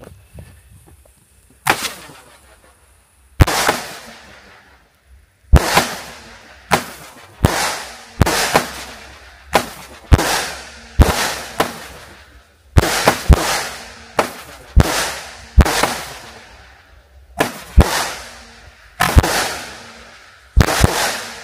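A 16-shot 19 mm firework battery (Iskra Line Potok) firing shot after shot. Each shot is a sharp bang followed by a fading hiss, at uneven gaps and sometimes in quick pairs, after a high hiss in the first two seconds.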